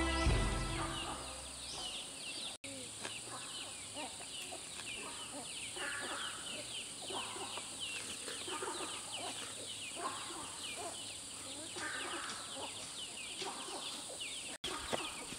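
Outdoor bird calls: many quick, high, falling chirps, with lower clucking calls about once a second, over a steady high drone. Background music fades out in the first second or two.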